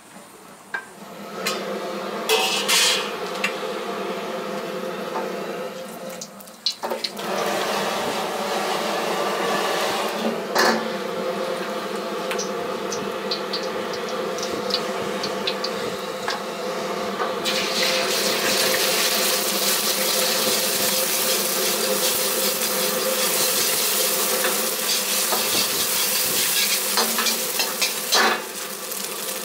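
Gas wok burner running steadily under a wok of hot oil, with a few metal clinks from a ladle and bowl. Past the halfway point beaten eggs hit the hot oil and sizzle loudly, and a ladle stirs them.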